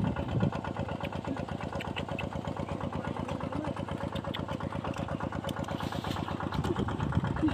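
Small engine, of the kind that drives a field water pump, running steadily at idle with a fast, even chugging beat.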